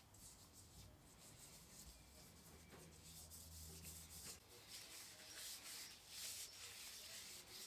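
Gloved hands rubbing linseed oil into a scorched wooden hatchet handle while the wood is still hot: faint, irregular rubbing strokes, stronger in the second half.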